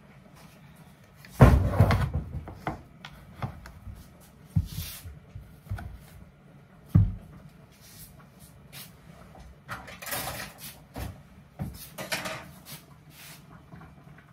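Kitchen handling noises: a loud clunk about one and a half seconds in with a short rattle after it, then scattered knocks, clicks and rustles, like a cupboard and kitchenware being handled.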